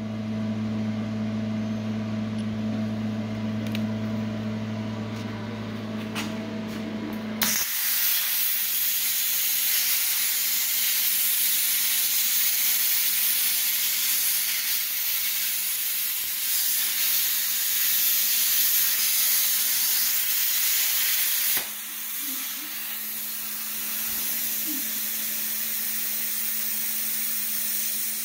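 A steady machine hum, then about seven seconds in a plasma cutting torch fires and cuts sheet steel with a loud, even hiss. About 22 seconds in, the hiss drops to a softer level as the torch stops cutting.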